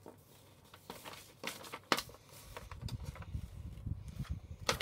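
Sheets of A4 paper rustling and crinkling as they are handled and folded by hand. There are a few sharp crackles about one and two seconds in, then steadier rustling with a low rumble of handling noise.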